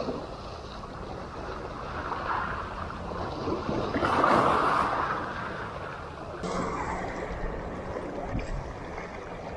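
Small waves washing in over shallow rocks at the water's edge, with one louder surge about four seconds in.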